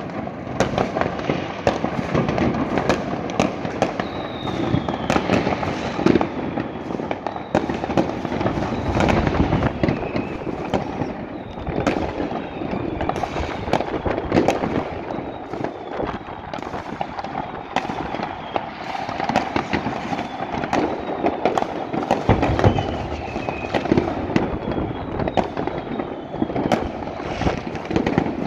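Fireworks and firecrackers going off across a city at once: a continuous rattle of bangs and crackles with no pause. Thin whistles that fall in pitch rise above it now and then.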